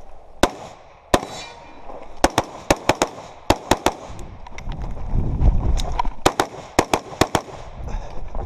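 Semi-automatic AR-style rifle firing in quick strings: about fifteen sharp reports. Two single shots come in the first second or so, then a fast run of about eight, then a pause with a low rumble, and another fast run of about six.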